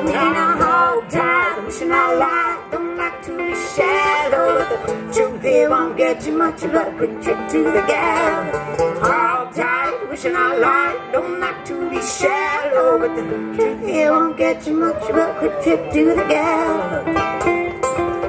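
Two banjos playing together, a fast run of plucked notes in an old-time/bluegrass song.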